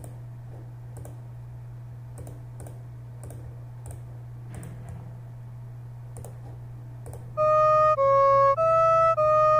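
Mouse clicks over a faint steady low hum, then about seven and a half seconds in, four held notes of a sampled flute, each about half a second long and each pitch-shifted to a different note, play back as a short melody.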